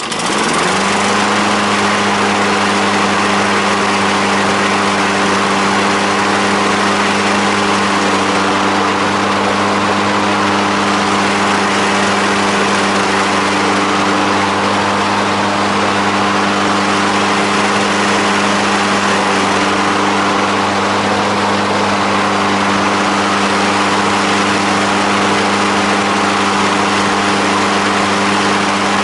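MTD self-propelled lawn mower's petrol engine catching and rising to speed in the first second, then running steadily at an even speed. This is the first successful run after its carburetor was repaired, and it runs normally.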